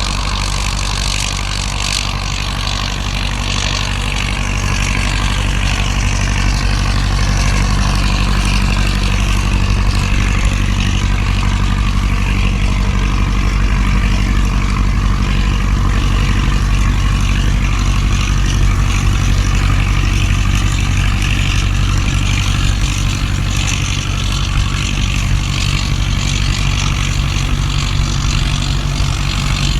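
An engine running steadily with a constant low drone, under the even hiss of heavy rain.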